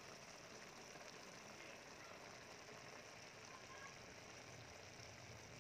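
Faint, steady simmering of fish cakes in tomato sauce bubbling in a frying pan over medium heat.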